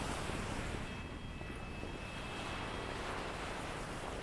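Wind buffeting the microphone over small waves washing onto a shingle beach, a steady rushing noise. A faint thin high whine sounds for about two seconds, starting about a second in.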